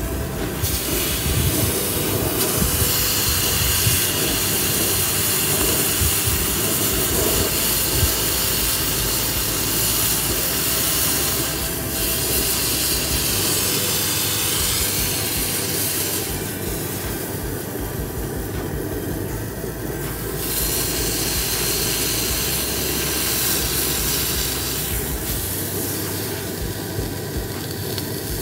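Tomahawk steak sizzling on a hot cast-iron grill pan, a steady loud hiss of searing meat. The sizzle fades twice, in the second half and near the end, then comes back.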